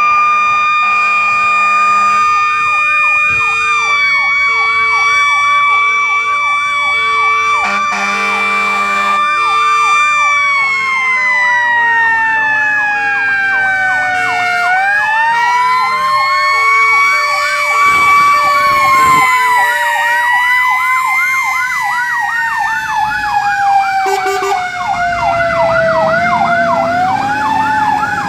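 Fire engine sirens: a steady wailing tone that slowly winds down and climbs back up twice, over a fast electronic yelp and a lower tone pulsing about once a second in the first half.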